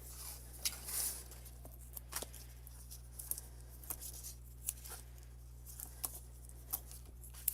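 Scattered light taps, clicks and rustles of cardstock pieces being handled and glued by hand, over a faint steady low hum.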